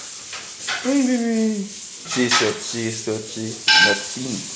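Wordless human voice sounds, a long falling vocalisation followed by a run of short repeated ones, over rustling handling noise on the microphone.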